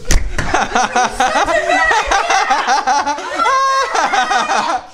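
Excited laughter and shrieks from a woman and a child, with one long held high-pitched yell about three and a half seconds in.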